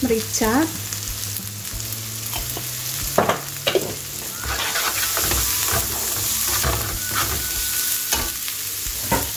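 Shredded cabbage with onion and garlic sizzling in a nonstick frying pan while a wooden spatula stirs and scrapes it. From about three seconds in there are several knocks of the spatula against the pan.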